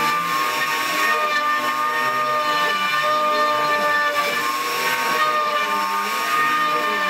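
A router spindle on a homebuilt CNC machine runs steadily with a high whine while it cuts a board. Under it, lower tones rise and fall in pitch.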